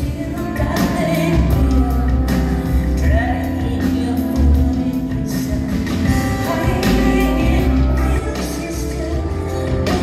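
Live band music: a woman singing over keyboards, electric bass and drums, with a heavy bass line and repeated drum and cymbal hits.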